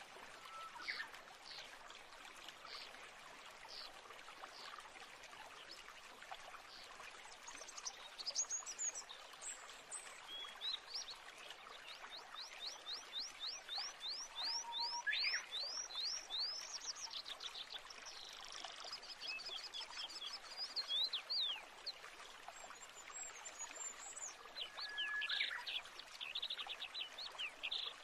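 Small birds chirping and trilling over the steady rush of a stream, with a fast run of repeated chirps in the middle.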